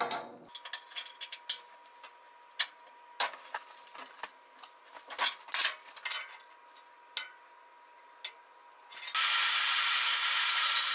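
Bent steel rod hooks clinking and sliding on a steel welding table, a scatter of light knocks. About nine seconds in, a portable bandsaw in its stand starts and runs steadily.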